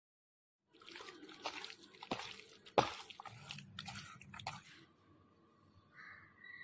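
Hand squeezing and mixing raw chicken pieces in a wet spice-and-herb marinade in a bowl: irregular squelching and smacking, with one sharp click about three seconds in. It starts just after the opening and stops about five seconds in.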